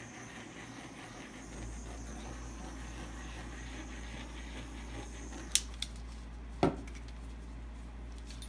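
Handheld craft torch hissing as it is swept over wet acrylic paint to pop surface bubbles. It cuts off with a sharp click about five and a half seconds in, and a single knock follows a second later.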